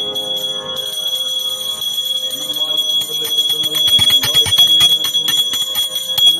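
Brass puja hand bell rung continuously: a steady high ring, with quick clapper strikes that grow louder and denser from about halfway through.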